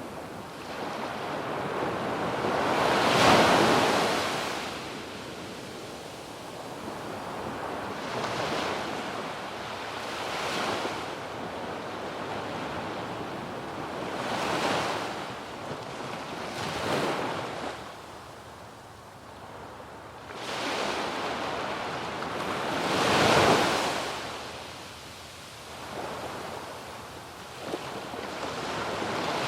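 Small sea waves breaking and washing up a sandy beach, one after another, with the loudest breaks at about three and a half seconds in and again at about twenty-three seconds in. Wind rushes lightly on the microphone.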